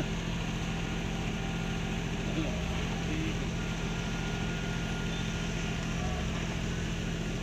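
Steady diesel drone of a MAN truck-mounted concrete boom pump and a transit mixer running, with a deeper surge about every three and a half seconds.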